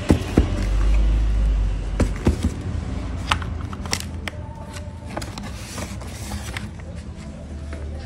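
Cardboard and foam packaging being handled: a scatter of sharp knocks and taps as items are moved in the box, with a low rumble of handling noise on the phone's microphone during the first two seconds.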